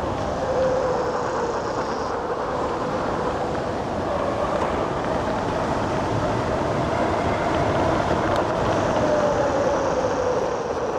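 Wind rushing over the microphone and tyre noise from an electric bike running fast downhill on pavement, with a faint hum that slowly rises and falls in pitch.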